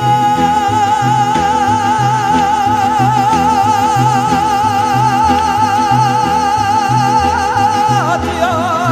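Live Mexican folk music from an ensemble of guitars and violins, with a singer holding one long note with wide vibrato over a steady bass beat. The note breaks and falls away about eight seconds in.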